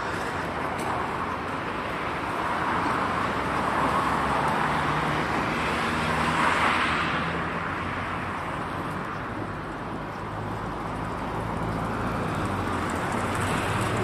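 Road traffic: cars passing, a steady hiss of tyres and engines that swells as a vehicle goes by, loudest about six or seven seconds in.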